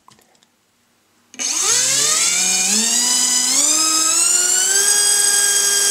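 T-Motor F3 1806 brushless motor spinning a four-blade 4-inch KingKong 4x4x4 propeller on a thrust test stand, run up by hand on 3S. After about a second of quiet it starts with a whine that climbs in steps as the throttle is opened, then holds steady at a high pitch.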